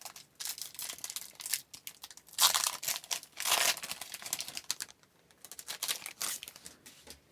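Foil wrapper of a hockey card pack crinkling and tearing as it is opened by hand, in several short rustling bursts, the loudest about two and a half and three and a half seconds in.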